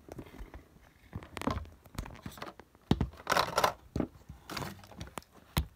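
Thin clear plastic packaging trays being handled, making a few separate bursts of crinkling and rustling with sharp clicks and taps of plastic.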